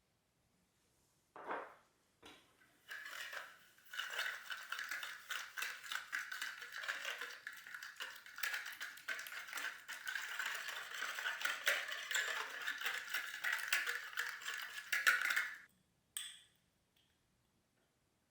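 Hand whisk beating a mixture in a bowl: fast, continuous clinking for about twelve seconds that stops sharply near the end.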